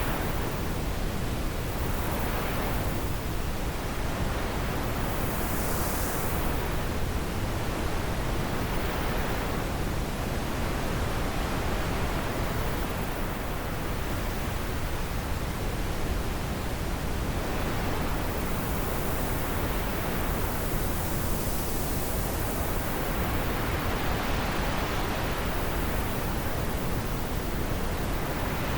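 Wind blowing, a steady rushing noise whose hiss swells and eases in slow gusts every few seconds.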